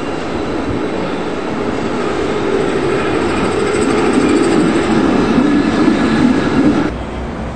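A city tram running on street rails as it comes up and passes close by, its rumble growing louder toward a peak, then the sound drops abruptly near the end.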